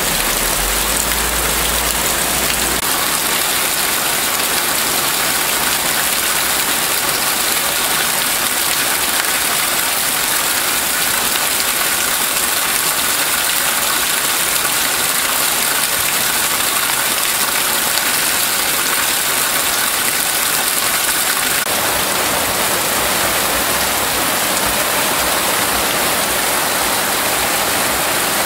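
Heavy rain pouring steadily, a dense even hiss of water splashing on gravel and grass.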